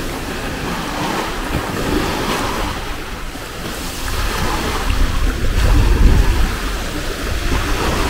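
Ocean surf washing in along the beach, with wind buffeting the microphone in gusts, strongest about six seconds in.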